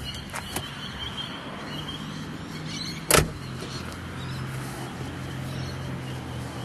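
A steady low mechanical hum that drops in pitch about three and a half seconds in, with one sharp click about three seconds in.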